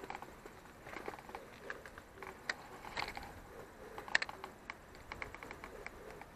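Faint scattered clicks and ticks from a spinning reel and line being handled: the reel handle turned and line pulled by hand, with a few quick runs of clicks.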